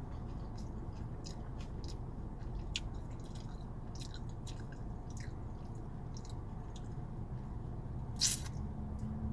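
A person chewing a mouthful of burrito close to the microphone: wet, squishy mouth clicks and smacks, with one louder short smack about eight seconds in.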